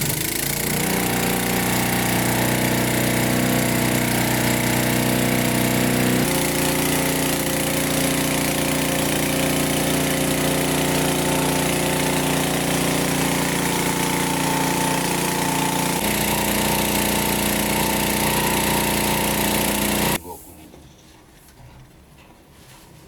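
A motor-driven machine running steadily, its pitch stepping to a new speed twice, then cutting off about twenty seconds in.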